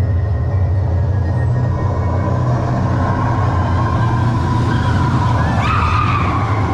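Roller coaster train running on its track: a steady heavy rumble, with a higher whine rising about five and a half seconds in.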